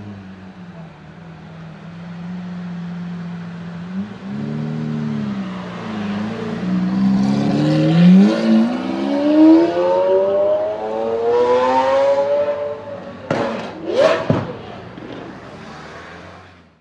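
Lamborghini Aventador V12 idling, then a single quick blip of revs about four seconds in. It then pulls away with the engine pitch climbing for several seconds. Near the end come two sharp exhaust pops with a short rev between them, and the engine fades as the car moves off.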